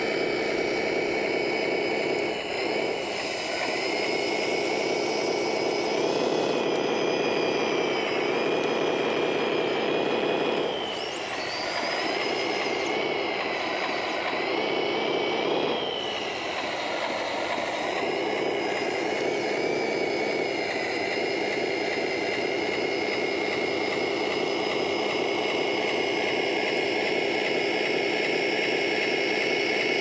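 Electric 5840-555 gear motors of a 3D-printed 1:14 scale RC bulldozer whining as they drive its tracks through loose soil, the pitch rising and falling with the throttle, with a few brief lulls.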